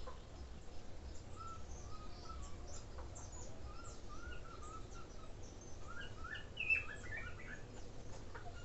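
Small birds chirping and twittering, many short quick calls at two pitches, with a louder burst of calls about two-thirds of the way through. A low steady rumble runs underneath.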